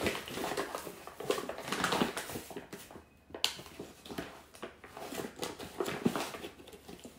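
A paper sack of bread flour rustling and crinkling as a plastic measuring cup digs into it to scoop flour, in irregular scrapes, with one sharp click about three and a half seconds in.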